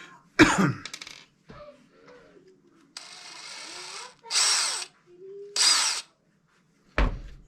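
Power drill boring into a pen blank, run in a few short bursts, with a sharp knock shortly after the start and another near the end.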